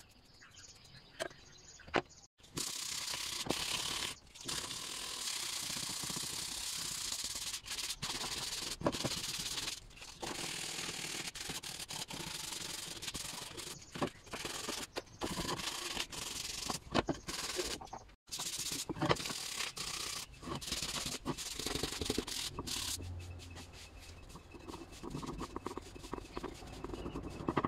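Sandpaper rubbed by hand over a wooden clock dial, a scratchy rasp in repeated strokes with brief pauses. Near the end it gives way to lighter, sparser scratching as a pencil works over the wood.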